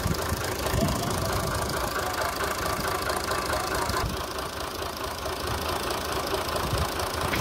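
Fiat 480 tractor's three-cylinder diesel engine running steadily.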